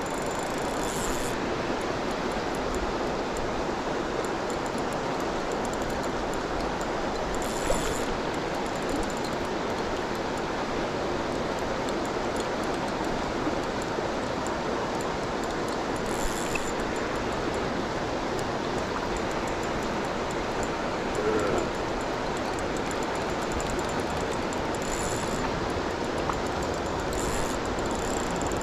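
Steady rushing of river current flowing over rocks, with a few brief clicks about 8 and 16 seconds in and again near the end.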